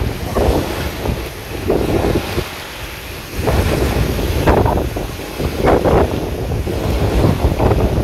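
Small wind-driven waves breaking and washing onto a pebbly river shore, one splash after another, under heavy wind rumbling on the microphone. The wind eases briefly about a third of the way in, then picks up again.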